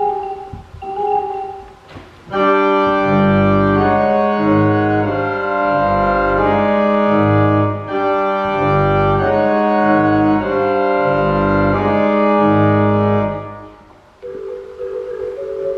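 Organ music: after a soft held note, a loud passage of full chords over a deep pulsing bass sets in a couple of seconds in and runs until a fade near the end, where a softer, higher sustained tone takes over.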